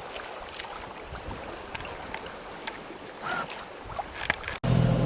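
A sailboat moving under sail: an even wash of water and breeze along the hull, with small scattered creaks and ticks from the boat. Near the end it cuts abruptly to a louder, steady low hum.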